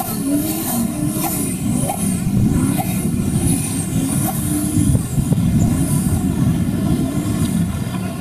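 Modified off-road competition 4x4's engine revving hard, its pitch rising and falling again and again, as it drives through a rocky river crossing with water splashing against the truck.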